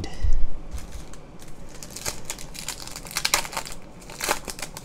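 Foil trading-card pack wrapper crinkling and tearing as it is opened: a run of sharp crackles, densest about two and four seconds in. A dull low thump comes about half a second in.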